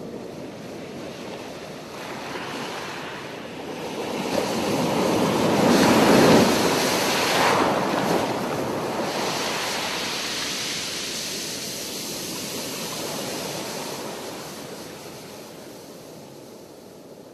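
A rushing wash of noise that swells to a peak about six seconds in, then slowly fades away.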